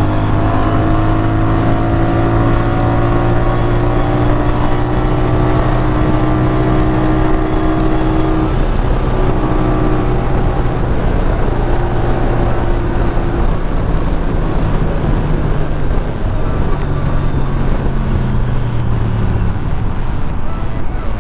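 Motorcycle engine running under way with wind rush, its pitch sinking slowly over the first several seconds and then holding steady.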